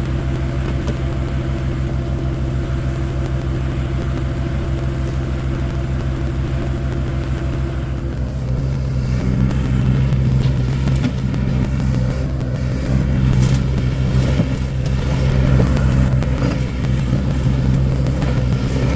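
An engine running steadily at a constant speed. About eight seconds in, one of its tones drops out, and after that the sound gets rougher, with clattering noise mixed in.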